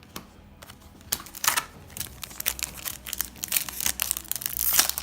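Foil booster pack wrapper being torn open and crinkled by hand, starting about a second in and getting busier towards the end.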